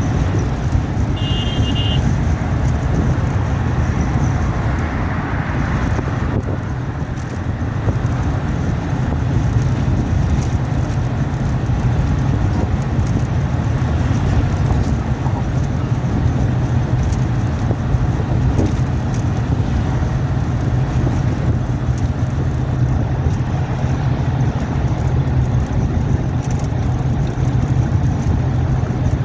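Steady low rumble of a road vehicle's engine and road noise, with a short horn toot about a second in.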